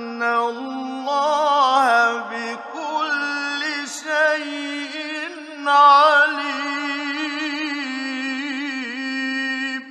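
Male Quran reciter chanting in melodic tajweed style, with long ornamented held notes whose pitch wavers and turns. The phrase ends just at the close and fades away in reverberation.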